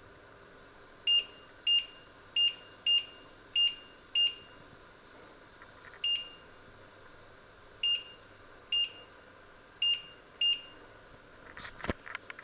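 Touch-control panel of a glass-top hob beeping once per press as its timer is stepped up: eleven short high beeps, six in quick succession and then five more spaced out. A brief knock and rattle follows near the end.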